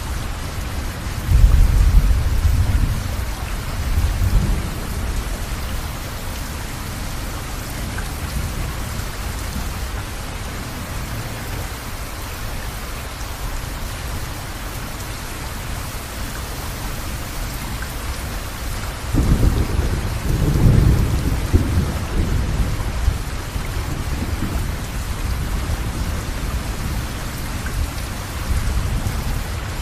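Steady rain, with low thunder rumbling twice: first about a second and a half in for a few seconds, then again about two-thirds of the way through.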